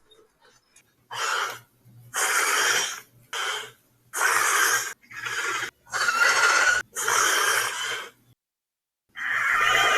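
A series of harsh, loud dinosaur screeching calls, about six in a row, each under a second long, then after a short pause a longer screech begins near the end.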